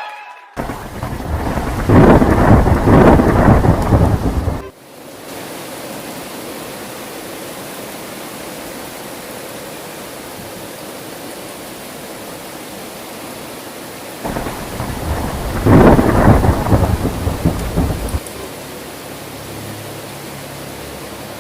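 Heavy rain falling steadily, with two long rolls of thunder. The first starts within the first second and cuts off suddenly after about four seconds; the second comes about fourteen seconds in and rumbles for about four seconds.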